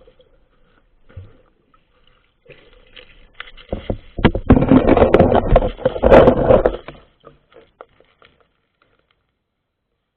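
Water sloshing and splashing right at a camera held at the water, loud for about three seconds in the middle, with faint scrapes and knocks before and after.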